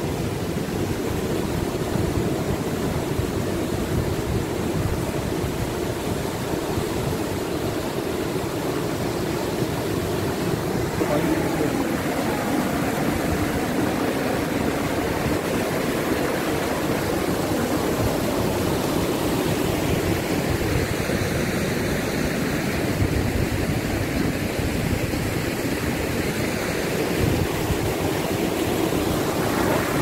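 A swollen river rushing through rapids over a rock ledge: a steady, loud wash of churning white water that turns hissier about ten seconds in.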